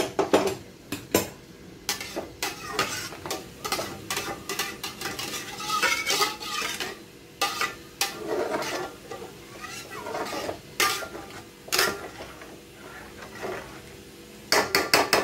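Flat metal spatula stirring rice in hot water in a metal pot, scraping and clinking against the pot's sides and bottom again and again. There is a quick run of sharp knocks near the end.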